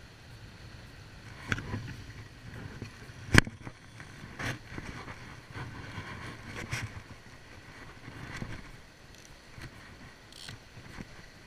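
Small sea waves washing against shoreline rocks, with knocks and rubbing as the fishing rod is picked up and handled near the camera. A single sharp click about three seconds in is the loudest sound.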